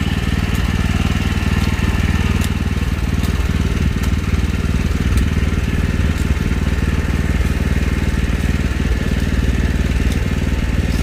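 A small engine running steadily at an even speed, loud and close.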